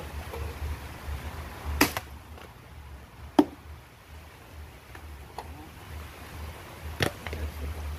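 Dry sticks cracking and clacking together as they are gathered by hand: four sharp cracks a second or two apart, the loudest about three and a half seconds in, over a low steady rumble.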